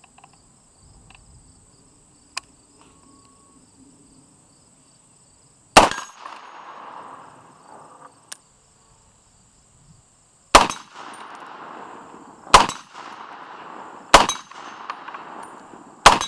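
Five shots from a short-barrelled .308 Winchester AR-10 pistol, the CMMG Mk3, each followed by the ringing clang of a hanging steel plate target being hit. The first shot comes about six seconds in, the other four in quicker succession roughly one and a half to two seconds apart, over a faint steady insect buzz.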